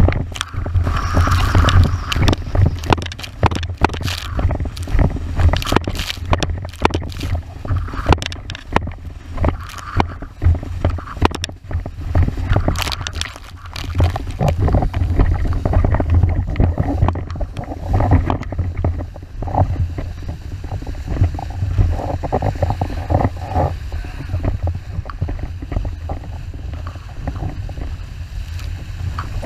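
Wind buffeting the microphone of a camera on a planing windsurf board, with water spray hissing and chop slapping the board in many sharp hits. The hits are thickest in the first half and thin out after about two-thirds of the way through.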